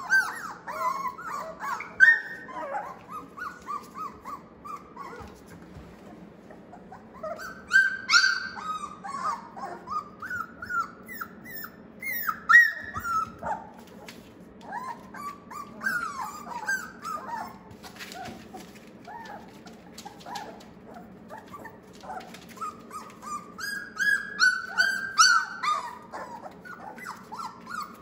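Four-week-old Australian Labradoodle puppies whimpering and yipping in short, squeaky, high cries that come in clusters, with a few quieter clicks between them.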